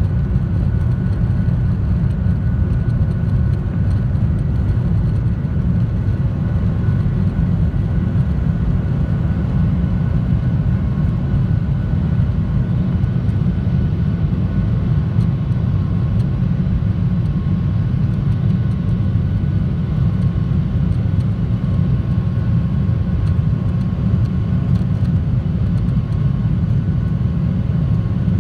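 Cabin noise of a Boeing 737-800 at takeoff thrust, heard from a window seat by the wing. Its CFM56-7B engines and the rushing air give a loud, steady low roar with faint steady whining tones above it, through the takeoff roll and into the initial climb.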